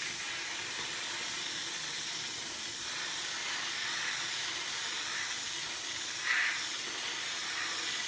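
Steam cleaner wand hissing steadily as it blows steam onto paint protection film to heat and soften its adhesive, with a short louder burst about six seconds in.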